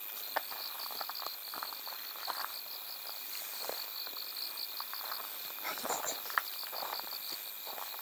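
Night insects chirping in a steady pulsing rhythm, about four pulses a second, with scattered footsteps crunching over it.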